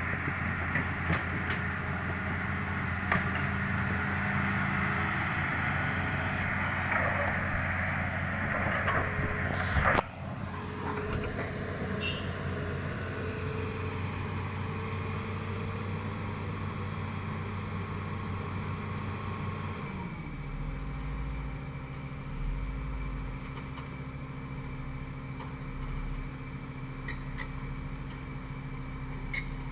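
Heavy machine engine running steadily, with a noisy rattle over it at first. There is an abrupt break about ten seconds in. About twenty seconds in, the engine note drops and settles lower.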